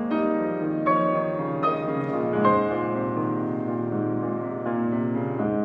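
Yamaha grand piano played solo: slow, sustained chords left ringing, with new notes struck about once a second and a short gap in the middle.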